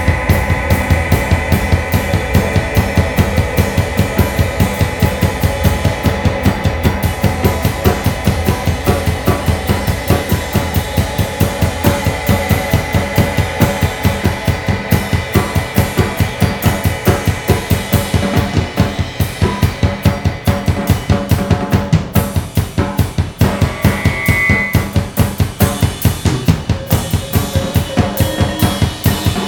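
Drum kit played fast and evenly in an improvised set: a rapid, unbroken stream of kick and snare hits, about four or five a second, with cymbal wash. Steady held tones run underneath the drumming.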